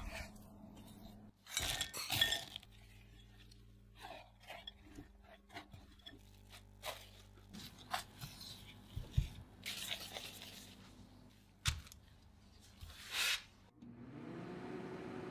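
Hands mixing and pressing cookie dough in a glass bowl: scattered soft squishes, crackles of a plastic glove and light clinks against the bowl. Near the end the sound switches to the steady hum of an oven running.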